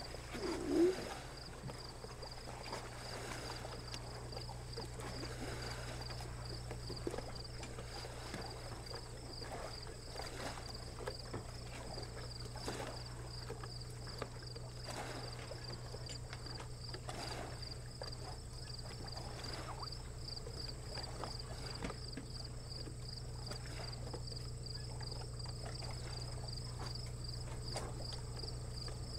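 Insects chirping outdoors in a steady, high, pulsing rhythm over a low steady hum, with one short loud sound about a second in.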